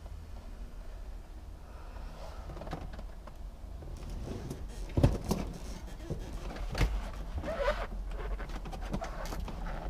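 Scattered knocks and clicks of hand work on a car's dashboard wiring and parts, with a brief squeak, over a steady low hum.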